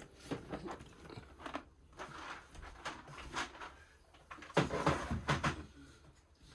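Small plastic storage containers handled and put away: irregular clicks and knocks with crinkly rustling, and a louder run of knocks about two-thirds of the way through.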